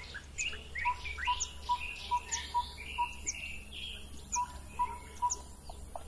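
An animal's call of short, evenly spaced "pop-pop-pop-pop" notes at one pitch, about two or three a second, in two runs with a pause between, over higher chirping and whistling of other birds.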